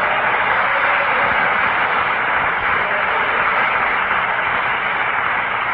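Audience applauding, a dense, steady clatter of many hands that holds at about the level of the speech around it.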